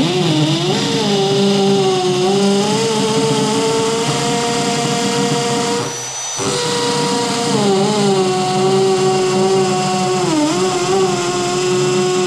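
Milwaukee M18 FUEL FPD2 cordless hammer drill in hammer mode, drilling a concrete paving slab with a 5 mm carbide masonry bit. The motor whine runs over the noise of the hammer action. It stops briefly about six seconds in, then runs on, and its pitch dips for a moment under load about ten seconds in.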